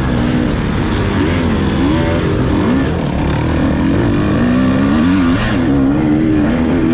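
Several dirt bike engines racing at once, their pitch rising and falling as they rev, shift and back off, overlapping one another over a constant rumble.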